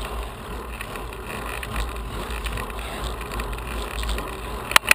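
Steady wind and road noise on a camera riding on a road bike along a paved path: an even rushing hiss over a low buffeting rumble. Two sharp clicks near the end.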